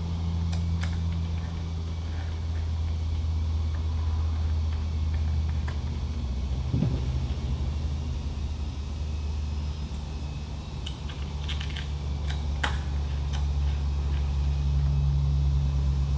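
Small steel screws and washers clinking and clicking as they are handled and started by hand into a metal grinder carriage, with a cluster of clicks past the middle and more near the end. A steady low hum sits underneath throughout.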